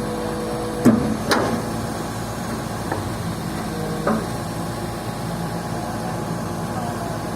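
Komatsu PC200-6 excavator's turbocharged six-cylinder 6D105 diesel running steadily after its overhaul. Sharp knocks cut through it, two close together about a second in, a faint one near three seconds and another about four seconds in.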